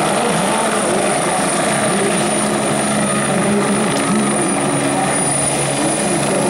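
Police helicopter hovering low, its rotor and turbine engine running steadily, with a thin high whine over the noise.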